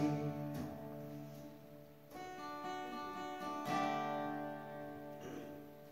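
Acoustic guitar strumming slow chords and letting each one ring, in an instrumental break of a worship song.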